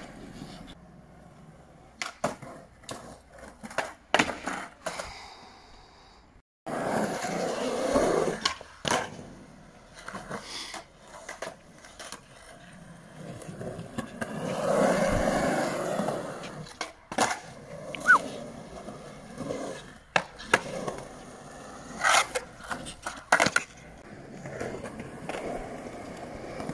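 Skateboard wheels rolling on concrete, with repeated sharp clacks of the board popping and landing.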